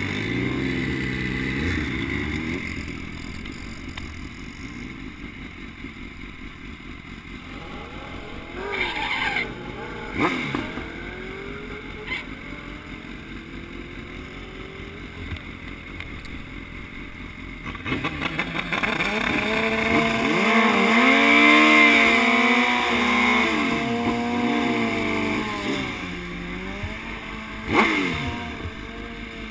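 BMW S1000RR sportbike's inline-four engine running and revving, its pitch rising and falling several times, loudest about two-thirds of the way through.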